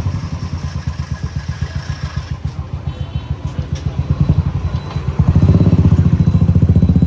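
Royal Enfield Thunderbird 350X's single-cylinder engine running with an even, rapid thump, growing louder about five seconds in.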